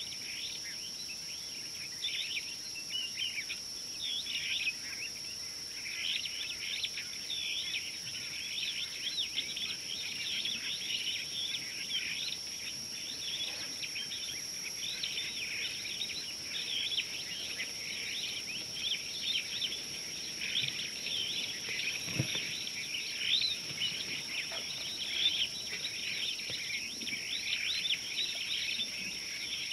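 Outdoor bush chorus: many birds chirping continuously over a steady, high-pitched insect drone.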